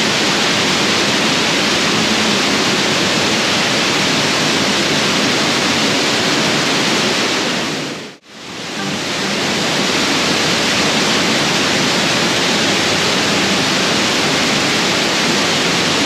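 Waterfall pouring: a loud, steady rush of falling water that dips briefly to near silence about halfway through, then comes straight back.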